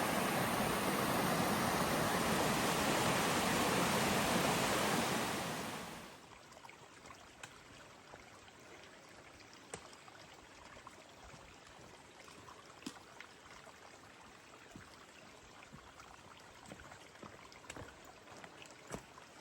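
Rushing stream water, a steady loud wash that fades out about five to six seconds in. After it come quiet and scattered faint ticks.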